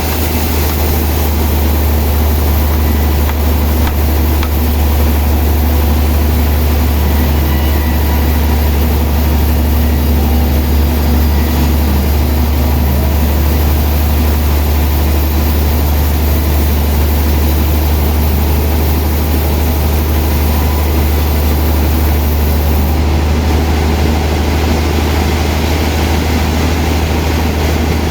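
Sawmill saw and its drive motor running steadily while sawing a large old log: a loud, unbroken low drone with a hiss over it.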